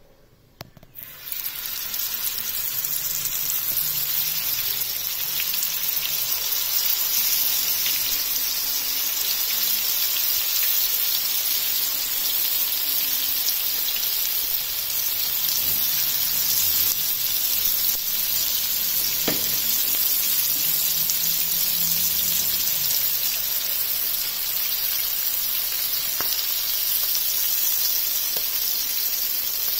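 Masala-marinated fish pieces frying in hot oil on a tawa: a steady sizzle that starts suddenly about a second in, as the fish is laid into the oil, with an occasional pop.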